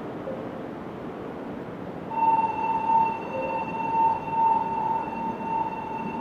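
Electronic platform signal tone at a Shinkansen station: one steady, buzzy pitch that starts about two seconds in and keeps sounding, swelling and fading slightly in loudness, over the steady hiss of the station.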